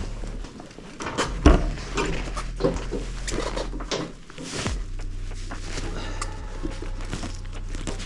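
A run of sharp knocks and clinks, like metal parts and tools being handled and set down, the loudest about one and a half seconds in, over a steady low hum.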